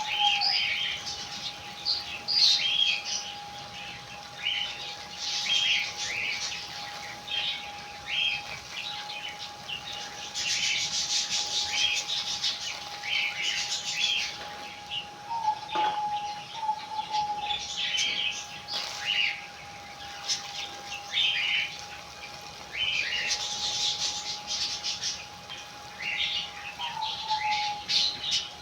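Small birds chirping busily in many short, quick calls, with a steady faint whine running underneath.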